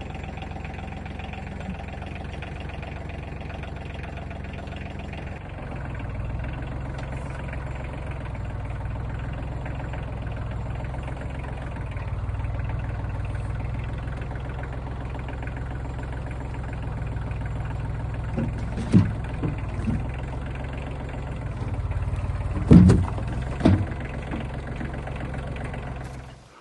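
A compact 35-horsepower tractor's engine runs steadily, changing pitch a little about five seconds in, as it lifts logs. Near the end come a few sharp knocks, the loudest about 23 seconds in.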